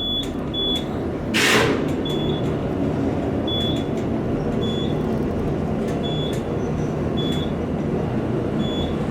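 Traction elevator car travelling upward: a steady rumble of the moving car, with a short loud rush of air about a second and a half in and faint short clicks about once a second.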